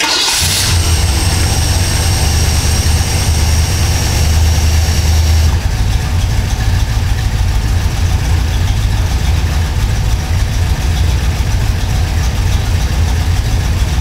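Engine with FiTech throttle-body fuel injection starting and catching at once, then idling with a cylinder misfire caused by disconnected spark plug wires. A faint high whine stops about five seconds in, and the idle goes on more unevenly after that.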